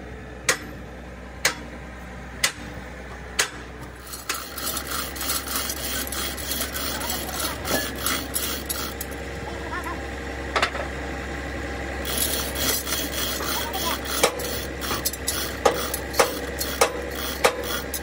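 Hand-chain hoist being worked on a heavy dozer final drive part. For the first few seconds there are single sharp metallic clicks about once a second. Then the chain runs through the hoist in a continuous rasping rattle with many small clicks, and the clicks are loudest near the end.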